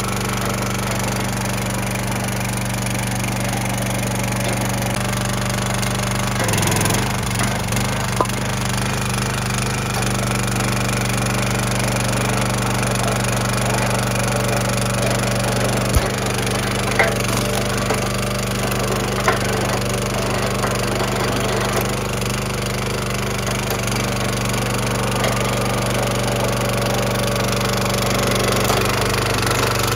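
Small gas engine of a DirtyHand Tools hydraulic log splitter running steadily, its pitch wavering briefly about six seconds in. Firewood splits and knocks against the splitter with several sharp cracks.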